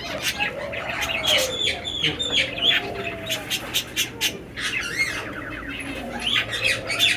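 Many caged pet birds in a bird shop chirping and squawking in a steady jumble of short calls, with lower, drawn-out cooing calls mixed in.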